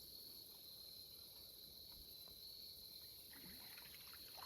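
Near silence with a faint, steady, high-pitched trill from crickets.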